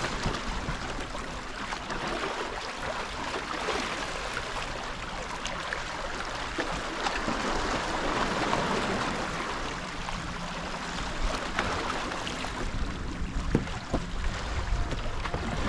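Steady rushing noise of wind and water at the shoreline, with a few faint knocks.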